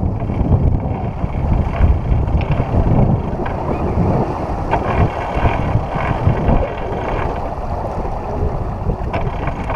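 Wind buffeting the microphone aboard a sailing yacht under way, a loud gusting rush strongest in the low end, with a few light knocks from the boat.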